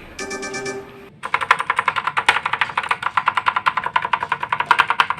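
Background music ends about a second in, then rapid, even clicking of mechanical keyboard switches, about nine clicks a second.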